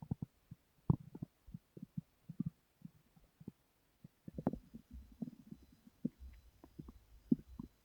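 A person's stomach growling: irregular runs of short gurgles and pops, with a low rumble setting in about four seconds in.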